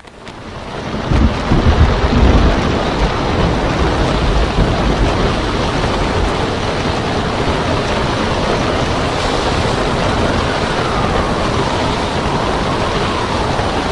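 Storm wind and breaking surf: a steady rushing noise with a deep rumble underneath, fading in over the first second or two.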